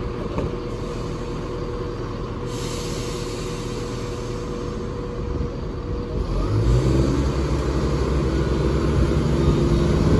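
Class 170 Turbostar diesel multiple unit idling at the platform, with a hiss from about two and a half to six seconds in. About six and a half seconds in, its underfloor diesel engines open up to move off, and the engine note grows steadily louder.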